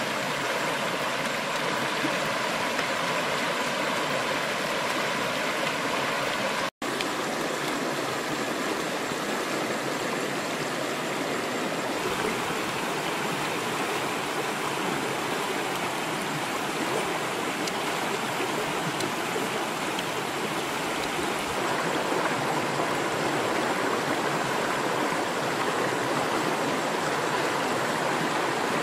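Shallow stream rushing and gurgling over rocks, a steady flow of water, cut off for an instant about seven seconds in.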